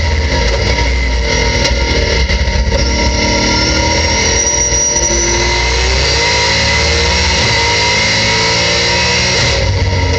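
Race-prepared 2015 Ford Mustang's engine, heard from inside the cockpit. Its pitch falls as the car brakes and downshifts from high speed, with a run of sharp cracks about a second or two in. It then rises again under full throttle as the car accelerates hard.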